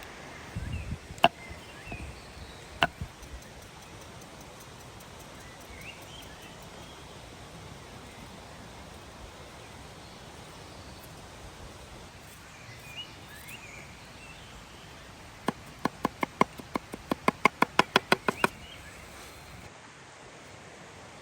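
A quick, even run of about twenty sharp knocks, roughly six a second, lasting about three seconds; two single knocks come before it near the start. A few short bird chirps sound faintly against an outdoor background.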